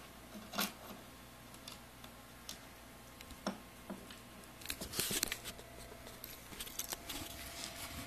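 Small metal engine parts being handled: scattered light clicks and clinks, with a short stretch of plastic bag rustling about five seconds in.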